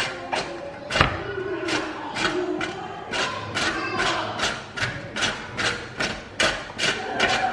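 A green bell pepper being grated on a large stainless steel box grater: rhythmic scraping strokes about three a second, the hardest about a second in.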